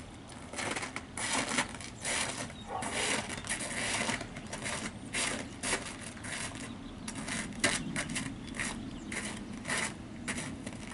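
Footsteps in snow: snow boots crunching on snow in a slow, uneven series of crunches.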